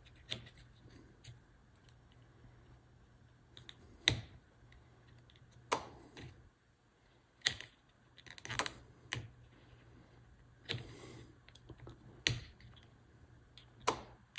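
About nine sharp, separate clicks at irregular intervals of one to two seconds, from a pushbutton being pressed and N-scale snap-switch turnout solenoids firing off a single capacitor's discharge. With two switch machines on the one capacitor the switches are working only unreliably, and one is not being thrown.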